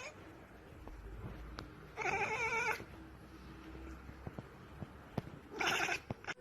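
Domestic cat meowing twice: a longer meow with a wavering pitch about two seconds in, and a shorter one near the end. A few faint clicks fall between.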